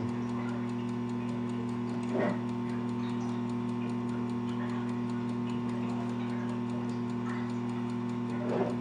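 Steady electrical hum of mechanical-room equipment, made of a few fixed pitched tones, with faint regular ticking over it.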